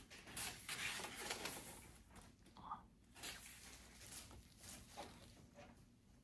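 Faint rustling of a book's paper pages being handled and turned, strongest in the first two seconds, then a few light rustles and soft taps.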